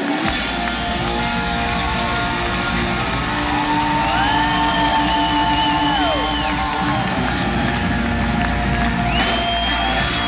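Live rock band playing held, sliding notes over a steady low bass, with the crowd cheering and whooping.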